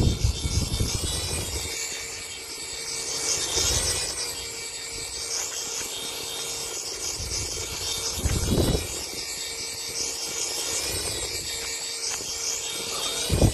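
Small toy sphere drone's propellers whirring overhead in flight, a steady high-pitched buzz that wavers slightly in pitch as it manoeuvres. A few brief low rumbles break in, near the start, around the middle and just before the end.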